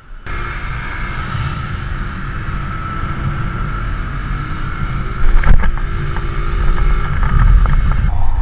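Bajaj Boxer CT 100 single-cylinder motorcycle engine pulling hard on the road under heavy wind rush on the microphone. About five seconds in the engine note steps up with a sharp knock, and the sound then grows louder as the bike is lifted into a wheelie.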